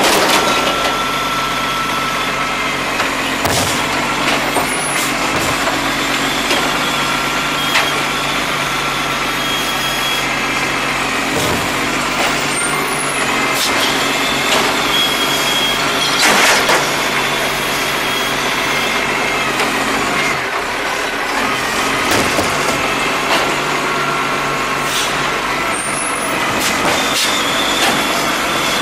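Iveco Acco side-loader garbage truck running at the kerb while its hydraulic arm lifts and tips recycling bins, with a steady whine from the hydraulics. Several sharp knocks and clatters from the bins and the load come through, the loudest about halfway through.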